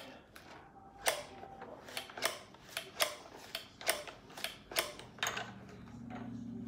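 Crank of a plastic toy stuffing machine being turned by hand, clicking about twice a second while it pushes fluff into a plush bear. A low steady hum comes in near the end.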